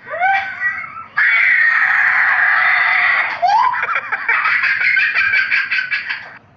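A person screaming loudly for about two seconds, then a rapid pulsing run of short repeated voice sounds, about five a second, that stops shortly before the end.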